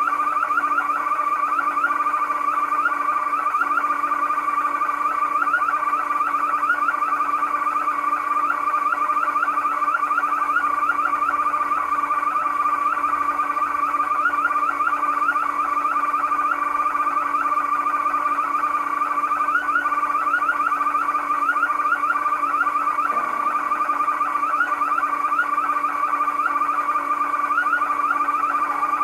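Electronic car-alarm siren, fitted as a car's horn, sounding nonstop with a fast warbling tone; the horn has malfunctioned and is going off on its own.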